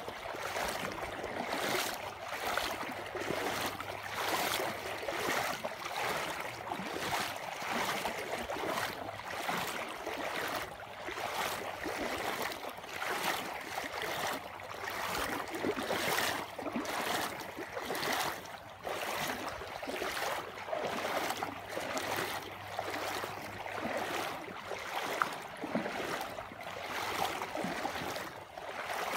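Rushing water: a steady wash of noise that pulses in regular surges a little under twice a second.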